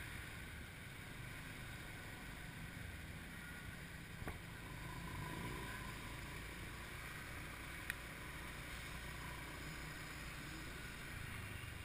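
Motorcycle under way, its engine giving a steady low rumble mixed with road and wind noise. Two brief clicks come about four and eight seconds in.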